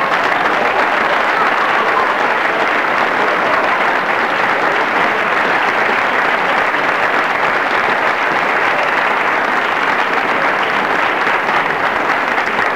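Loud, steady applause from many people clapping at once.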